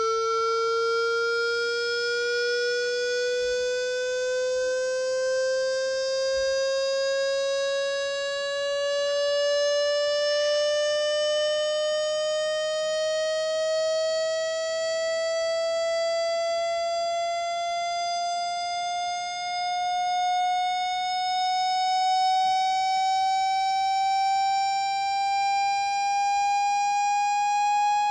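Electronic water-eject tone: one continuous tone with overtones, rising slowly and evenly in pitch. It is played to vibrate trapped water out of a phone speaker.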